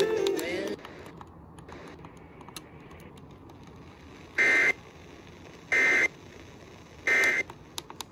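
Emergency Alert System digital data bursts: three identical short warbling data tones about a second apart, the three-times-repeated SAME code, short enough to be the end-of-message code. A brief pitched sound cuts off within the first second, before the bursts.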